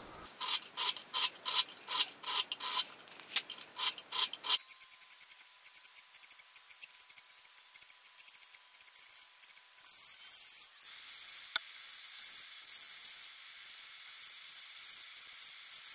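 Flat hand file draw filing the bevel of a steel knife blade clamped in a bench vise. First comes a quick run of short, even rasping strokes, then about four and a half seconds in it changes to a thinner, higher, more continuous scraping.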